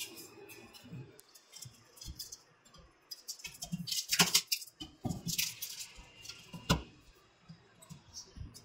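Hands handling a washing machine's thin sheet-metal rear panel: scattered knocks, scrapes and rustles, with the sharpest clicks about four seconds in and again near seven seconds.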